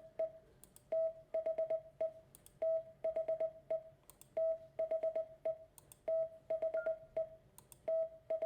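Morse code beep tone sending the word "THE" (dah, dit-dit-dit-dit, dit) over and over, about five times, one word every second and a half or so. It is a single steady medium-high pitch with a small click as each beep starts and stops.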